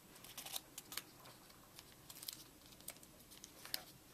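Paper being folded and pressed by hand around a tube: faint crinkling with scattered soft ticks.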